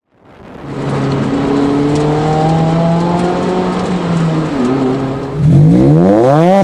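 Mazda Roadster ND5RC's 1.5-litre four-cylinder engine through an RK Design axle-back exhaust. It fades in and runs at a steady engine speed for a few seconds, then about five seconds in revs up sharply, its pitch climbing steeply.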